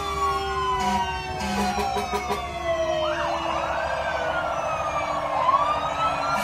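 Several fire engine sirens sounding together, their wails overlapping and sliding down in pitch; about three and a half seconds in, a fast warbling siren joins.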